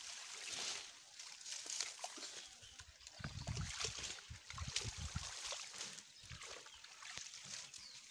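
Shallow pond water sloshing and trickling as water hyacinth and a nylon fishing net are worked through it by hand, with the plants rustling and crackling. A run of low, dull thumps comes in the middle.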